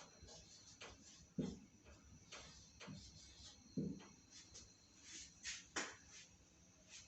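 Faint scratching strokes and soft knocks of handwriting, with two louder low thumps about a second and a half and nearly four seconds in.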